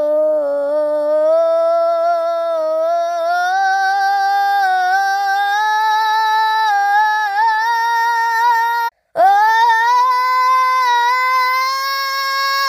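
A female voice singing one long held note without words, its pitch slowly creeping upward. It breaks off for a moment about nine seconds in and comes straight back a little higher.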